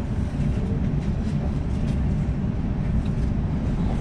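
Sydney suburban electric train running, a steady low rumble of wheels and running gear on the track, with a few faint clicks.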